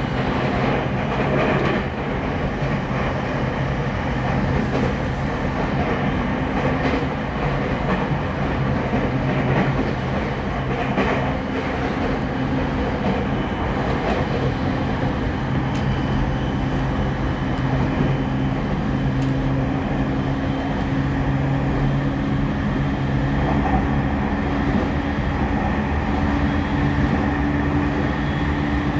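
Running sound inside a refurbished Tokyo Waterfront Area Rapid Transit 70-000 series electric train car: a steady rumble of wheels on rail under a motor hum, with a few faint rail-joint clicks. The hum's pitch creeps slowly upward over the last several seconds.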